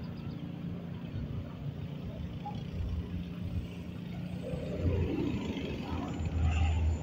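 Cessna Grand Caravan turboprop running, a steady low drone, with louder low rumbling swells in the second half.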